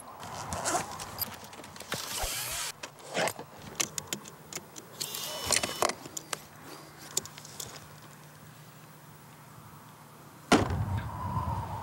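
Scattered clicks, clanks and rattles of hands tinkering on a toy ride-on dune buggy. A louder steady sound starts abruptly near the end.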